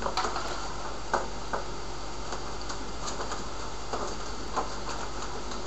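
Scattered light clicks and knocks from hands handling a flat-screen monitor and its cables, about eight in all, over a steady background hiss.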